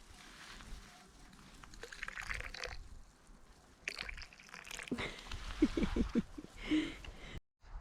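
Tea being poured into a cup, splashing and trickling, with a few short gurgles about two-thirds of the way through.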